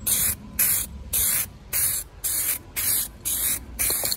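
Aerosol spray-paint can hissing out in eight short bursts, about two a second.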